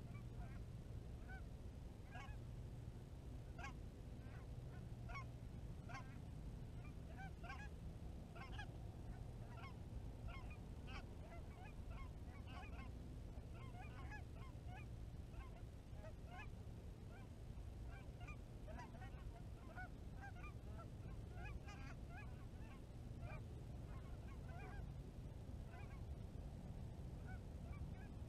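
A flock of geese honking: many short, overlapping calls throughout, over a steady low rumble.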